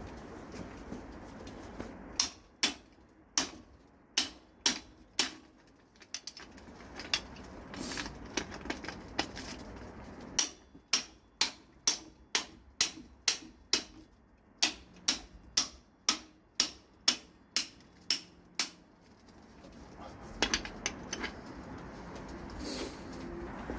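Hammer blows on metal: a short run of sharp strikes, a pause of a few seconds, then a longer steady run of about two to three blows a second, with a few lighter taps near the end.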